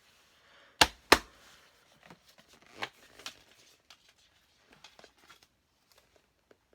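Two sharp knocks about a third of a second apart, about a second in, then a few lighter clicks and taps: a plastic penny board being handled and knocked against a surface.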